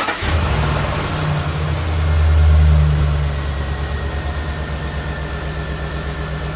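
Car engine just started, running at a raised idle that swells about two seconds in and then settles to a steady idle.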